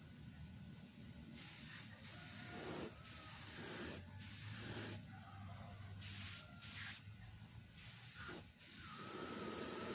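Compressed air hissing from an air blow gun in short bursts, about eight of them, as it blows dust off a carved bamboo panel.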